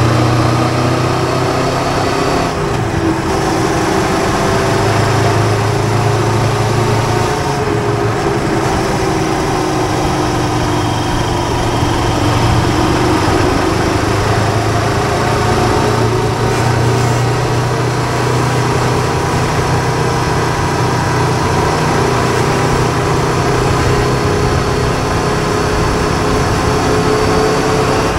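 Mash B-Side sidecar motorcycle's engine running steadily on the move, its pitch drifting gently up and down with the throttle and easing off briefly about three seconds and eight seconds in.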